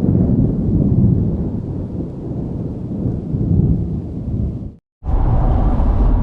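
Rolling thunder rumbling low, swelling and fading, then cutting off abruptly at a hard cut about 4.5 seconds in. For the last second or so a vehicle engine runs steadily.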